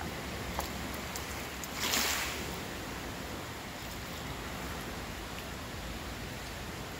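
A hooked walleye splashing at the water's surface as it is reeled in, with one louder splash about two seconds in, over a steady hiss of wind and water.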